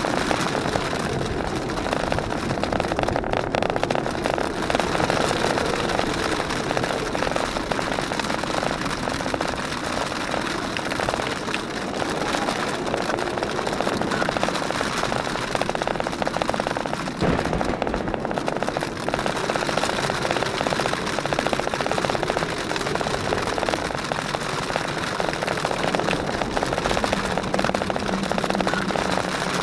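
Jeep Wrangler JKU driving slowly over a wet, rocky gravel trail: engine running steadily and tyres rolling over gravel, picked up by a camera mounted outside on the hood, under a steady rushing noise.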